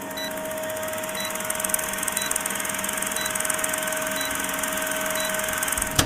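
Old-film countdown sound effect: a film projector running with a steady hum and a rapid fine clatter, with a short high beep once a second. It cuts off suddenly near the end.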